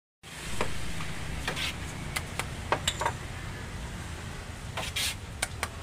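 Metal ladle clinking against a large aluminium pot and ceramic bowls as rice porridge is scooped and served, about ten light clinks spread unevenly over a low steady rumble.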